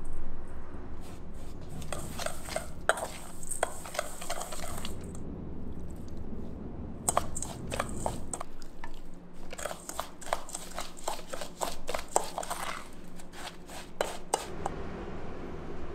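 Kitchen prep sounds: a run of clicks, knocks and clatters of utensils and containers being handled, in two busy stretches with a quieter gap in the middle and a few light ticks near the end.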